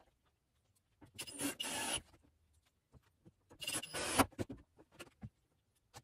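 Two short bursts of scraping and rubbing, about a second in and again about three and a half seconds in, with a few faint clicks between.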